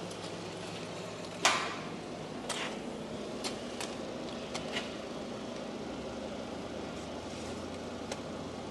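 Scattered clicks and knocks from parts being handled, the loudest a sharp click about a second and a half in and a few lighter ticks after, over a steady low hum.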